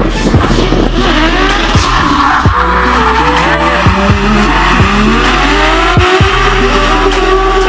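Drift car engine revving up and down with tyre squeal as the car slides sideways, mixed under a music track with a steady beat.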